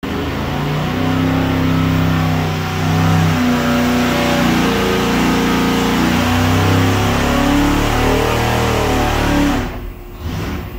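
Carbureted V8 engine on a SuperFlow engine dynamometer running loud under load as it is pulled up through the rev range. About nine and a half seconds in the throttle closes and the engine drops back toward idle.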